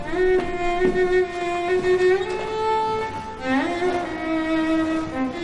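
Background drama score of bowed strings playing long held notes, the melody stepping to new pitches about two seconds in and again about three and a half seconds in.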